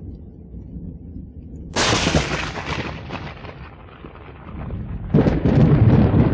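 Thunder sound effect: a low rumble, then a sharp thunderclap about two seconds in that trails off in crackles, and a second loud rolling crash of thunder near the end.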